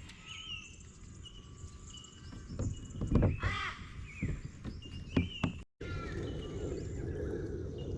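Wild birds calling, with many short whistled and pinging notes and a harsh cawing call about three seconds in, over a few low knocks. The sound drops out for a moment just before six seconds and comes back with a steady low rumble beneath the birds.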